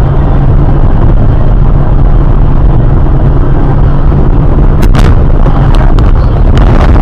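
Loud, steady low rumble of a car driving at highway speed, picked up inside the cabin by a dashcam, with a few sharp clicks about five and six seconds in.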